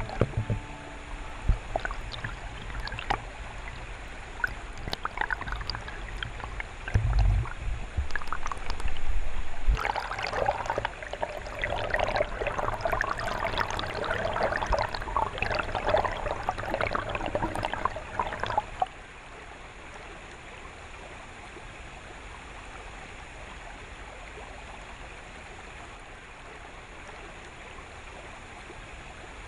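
Stream water gurgling and crackling as heard under water, with a few dull knocks about seven seconds in and a louder, busier stretch in the middle. About nineteen seconds in it drops suddenly to a steady, softer rush of flowing water.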